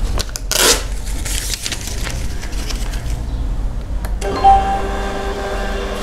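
The built-in thermal printer of a Zoncare ZQ-1203G ECG machine starts about four seconds in and prints an ECG strip, its paper-feed motor giving a steady whirring tone. Before it, about half a second in, comes a brief paper rustle.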